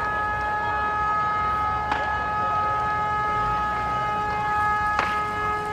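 A vehicle horn blaring in one steady, unbroken tone, with sharp pops from the fire about two and five seconds in.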